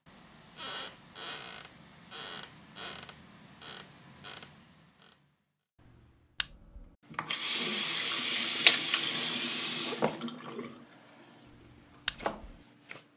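Soft footsteps, about two a second, then a click and a washbasin tap running hard for about three seconds before it is shut off. Two sharp clicks come near the end.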